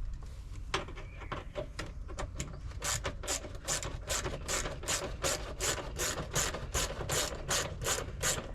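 Hand socket ratchet clicking as a fastener is worked, being checked for tightness; the clicks are sparse and uneven at first, then settle into a steady run of about three a second.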